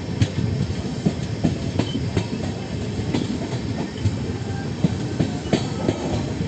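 LHB passenger coaches' wheels rolling on the track: a steady running rumble with many irregular sharp clicks and clatter from the rails.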